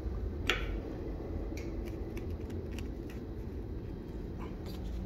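A 1/4-inch threaded wood insert being turned by hand into a drilled hole in a wooden table frame: a few short creaks and clicks as the metal threads bite into the wood, over a steady low hum.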